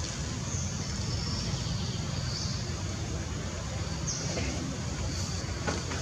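Steady low rumble of distant road traffic, with faint high chirps above it and a single soft click near the end.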